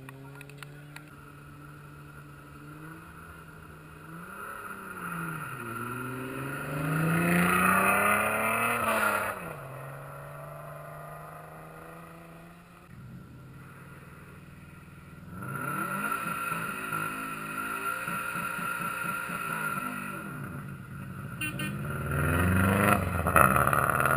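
Rally car engines at hard throttle on a gravel stage, the pitch swinging up and down as the cars rev through the gears and pass close by. There is a loud pass about seven to nine seconds in and another near the end, with a car running at steady revs in between.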